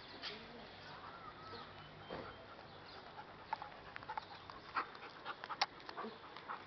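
German Shepherd dog panting, with a run of sharp, light clicks and taps in the second half.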